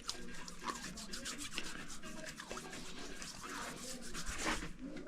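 Rapid, continuous scrubbing and rubbing in petrol while degreasing greasy motorcycle parts.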